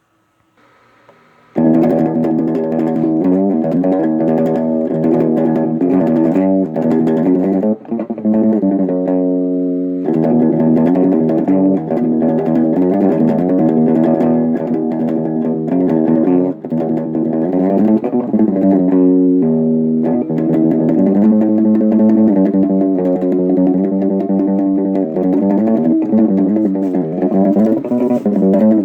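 Music led by plucked guitar with bass, starting suddenly about a second and a half in after a short quiet moment.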